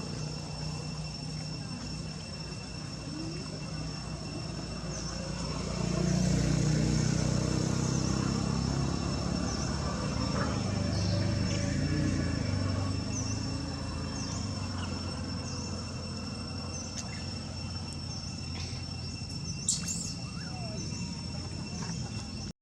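Outdoor ambience: a steady high insect drone with short high chirps repeating every half-second or so, over a low engine rumble that grows louder about six seconds in and then eases off.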